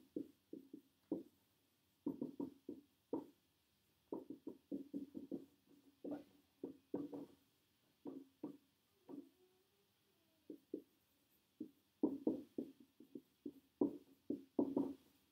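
Marker writing on a whiteboard: bursts of quick tapping strokes, word by word, with short silent pauses between them.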